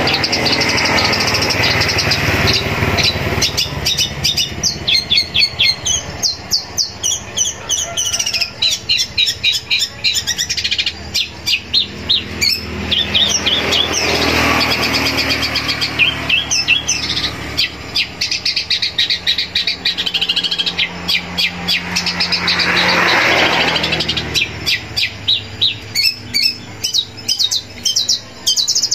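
Long-tailed shrike (cendet) singing a loud, fast, varied song of rapidly repeated chattering notes and trills, with mimicked fill-ins of other birds' songs and a couple of harsher scratchy passages.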